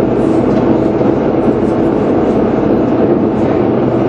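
Glass-bottom tour boat's engine running steadily, a loud even drone heard from inside the hull's underwater viewing cabin.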